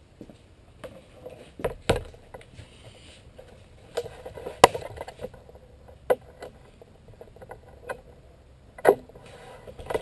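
Scattered clicks and light knocks of hand tools being handled against a sheet of aluminum, about half a dozen sharp ones with quiet between, the loudest about four and a half seconds in.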